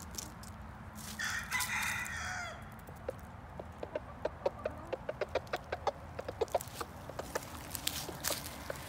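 A rooster crows once, briefly, about a second in, followed by a string of short, quick clucks.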